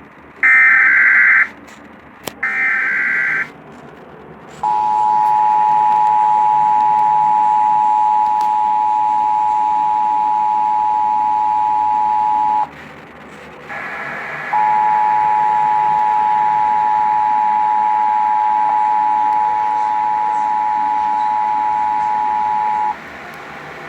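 Emergency Alert System test tones. Two short, screechy digital SAME header bursts come first. Then the steady two-tone attention signal (853 and 960 Hz together) sounds for about eight seconds, breaks off briefly, and sounds again for about eight seconds, marking the start of an EAS test broadcast.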